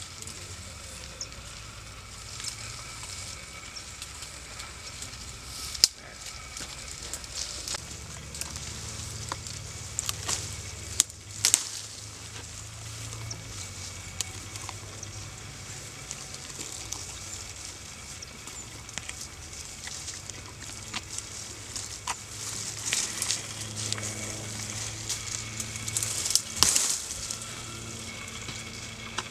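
Young African elephant browsing in dense bush: leaves rustle and twigs crackle and snap as its trunk pulls at the branches. A few sharper snaps stand out, with a denser run of them near the end.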